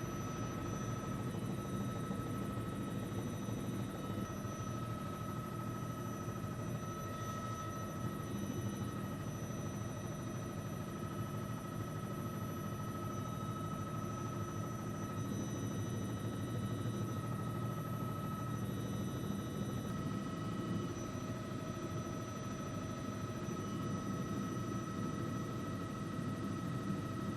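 News helicopter's engine and rotor running steadily, heard from on board: a low drone with a constant high whine.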